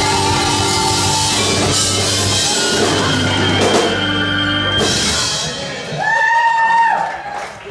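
Live blues band playing the closing bars of a shuffle, with electric guitar, keyboards and drums. The full band sound breaks off about five seconds in, and a short held note follows near the end.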